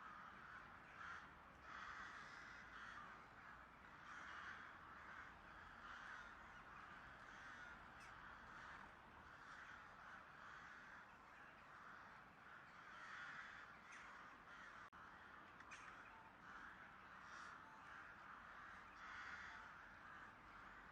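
Faint crows cawing over and over, many short harsh calls overlapping at an irregular pace.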